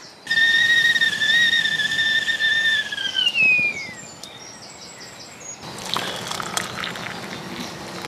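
Metal whistling kettle whistling at the boil with one steady shrill note, which falls in pitch and dies away about three to four seconds in. Near the end comes a spell of hiss and clicks.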